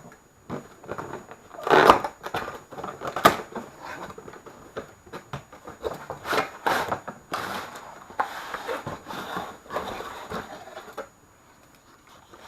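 Cardboard toy box being opened and its contents pulled out: irregular rustling, scraping and sharp knocks, loudest about two and three seconds in, going quiet near the end.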